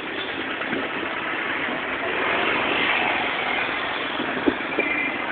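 A motor vehicle engine running steadily amid street traffic noise.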